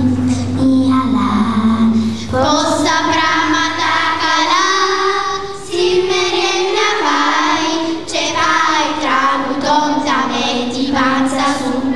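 Children singing a melody together.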